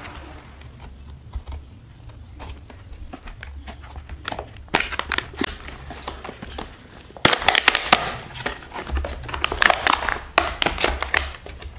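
Paper and cardboard packaging being slit open with a box cutter and then pulled apart and handled, crinkling and crackling. Sparse ticks at first, then the crackling grows dense about four seconds in and is loudest from about halfway on.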